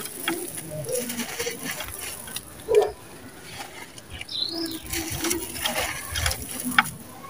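Dry sand-cement crumbling in the hands: gritty crunching and crackling as chunks break and powder pours, with one louder crunch near the middle. A short bird chirp about four seconds in.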